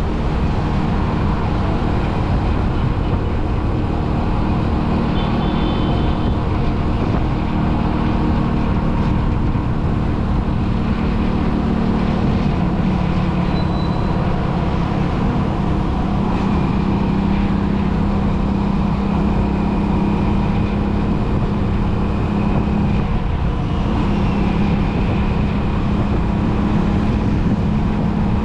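Steady engine hum and road noise from a vehicle travelling along a road, with a few brief faint high tones in the traffic.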